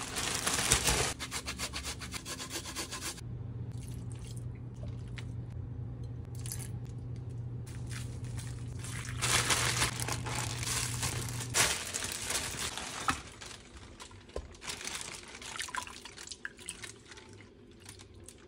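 Thin plastic bag crinkling and rustling with marinade sloshing inside as a triggerfish skeleton is worked around in it, with liquid dripping from the bag. A steady low hum runs through the middle.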